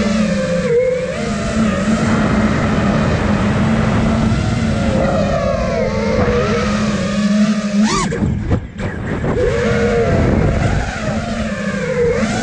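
Nazgul Evoque 5-inch FPV quadcopter's brushless motors and propellers whining in flight, heard from the onboard camera, the pitch rising and falling with throttle. About eight seconds in the throttle drops and the sound briefly falls away, then picks up again.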